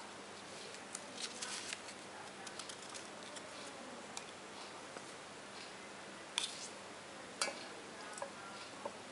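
Small clicks and rustles of a paper stamp being handled and dropped into an enamel mug of water, then a metal table knife clinking against the enamel mug as it pushes the stamp under: two sharp clinks about a second apart, followed by a few softer taps.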